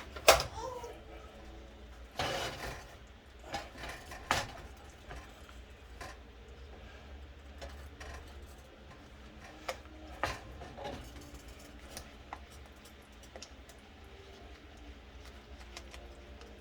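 Scattered kitchen clatter: a handful of sharp knocks and clinks of utensils and dishes, the loudest about a second in, a few more within the next four seconds and only occasional ones after, over a low steady hum.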